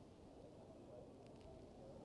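Faint, muffled coffeeshop background murmur of indistinct chatter, with two or three light clicks a little over a second in.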